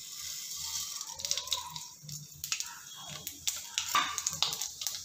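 Mustard seeds, urad dal, cumin and fenugreek sizzling in hot sesame oil in a kadai, with many irregular sharp crackles as the mustard seeds pop: the tempering stage of a curry.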